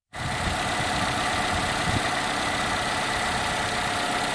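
Toyota Camry V50's 2AR-FE 2.5-litre four-cylinder engine idling steadily, with a steady whine and occasional low knocks. This is the knock the owner has been chasing, which he suspects is a bearing on the gearbox side.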